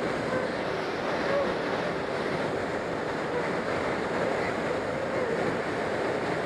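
Steady rush of air over a glider's canopy, heard inside the cockpit while the glider is towed behind a tow plane, with the tow plane's engine running ahead under it.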